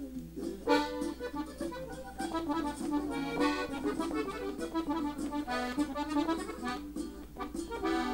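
Gabbanelli diatonic button accordion playing a melodic ornament (adorno) on the treble buttons, a run of quick changing notes starting just under a second in.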